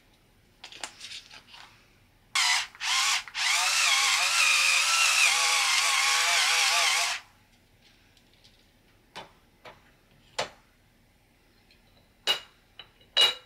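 Small battery-powered pepper grinder whirring: two brief pulses, then a steady run of about four seconds with a slightly wavering motor pitch. Light shakes of a salt shaker come before it, and a few sharp clicks and glassy taps near the end.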